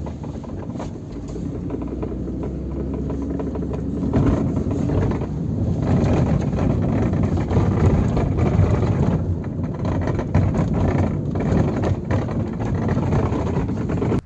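Road noise inside a moving 2006 Mazda 3 hatchback, steady at first, then rougher and louder about four seconds in, with repeated knocking and rattling from the rear over bumps. The rattle comes from a rear brake pad loose in its caliper because the caliper's retaining spring no longer holds it.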